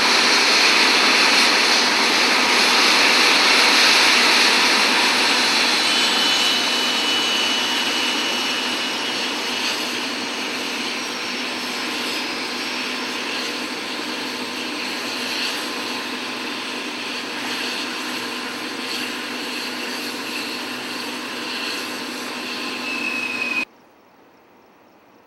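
Los Angeles County Fire Sikorsky Firehawk helicopter running on a rooftop helipad: a dense turbine rush with a steady high whine, slowly getting quieter. It cuts off abruptly near the end.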